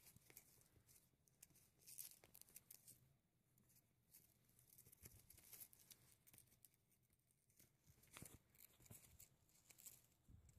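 Near silence with faint, irregular rustling and light scratching: Persian kittens scrambling on a cloth sheet and batting at a ribbon, with scattered small clicks.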